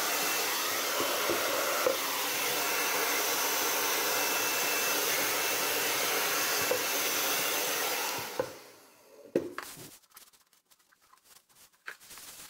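Handheld hair dryer blowing steadily, clearing sanding dust off a sanded resin surface. It is switched off about eight seconds in and fades away, and a few faint clicks and knocks follow.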